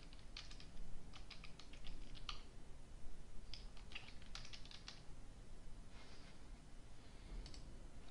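Faint computer-keyboard typing: several quick runs of keystrokes as a name is typed in, then a single click near the end.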